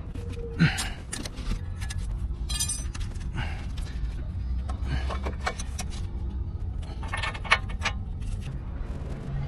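Scattered metallic clinks and taps, with a brief jingle about two and a half seconds in, as brake parts and tools are handled while a brake rotor is bolted to the wheel hub and the caliper is fitted. A steady low hum runs underneath.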